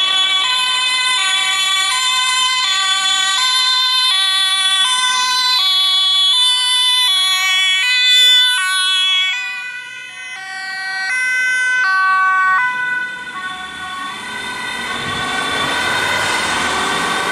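Dutch emergency-vehicle two-tone sirens, from the police escort car and the ambulance, alternating between a high and a low tone about every half second. After about thirteen seconds the alternating fades as the vehicles pass, leaving road noise and a fainter siren.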